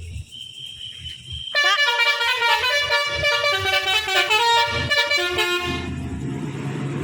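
A tour bus's basuri (telolet) roof-trumpet horn plays a stepping multi-note melody for about four seconds, several tones sounding together. It starts about one and a half seconds in, then gives way to the low steady running of the bus engine.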